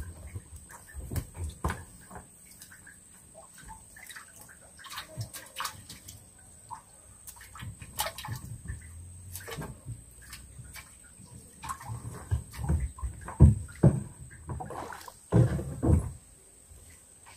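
Water sloshing with irregular knocks and thumps, the loudest cluster near the end.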